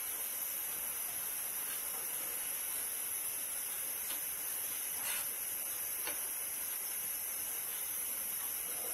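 Steady hiss with three faint, soft scrapes about a second apart: a metal spoon scooping minced-meat masala and spreading it over a whole cauliflower in a ceramic dish.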